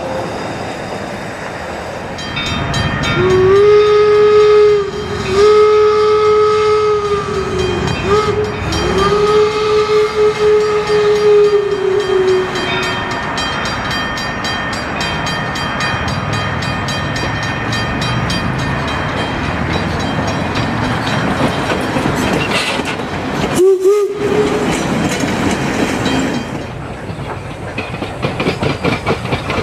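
A 4-4-0 steam locomotive's whistle blowing long, long, short, long, the grade-crossing signal, over the steady running noise of the train. One more short toot comes about two-thirds of the way through.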